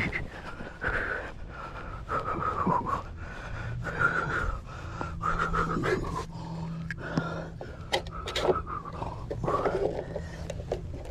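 Heavy, repeated breathing close to the microphone, with a few sharp clacks about two-thirds of the way through as white vinyl railing sections are handled on the grass. A steady low hum sets in a few seconds in.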